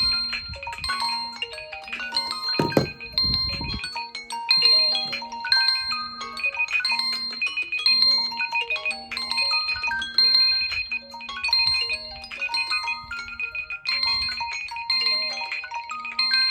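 Several smartphone ringtones and alarm melodies sound at once, with chime-like and marimba-like tunes overlapping. Under them a low beep repeats about twice a second. A brief low rumble comes about three seconds in.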